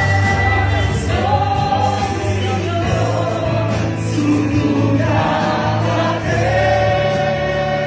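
A choir singing a Christian hymn, holding long sung notes over a steady bass accompaniment.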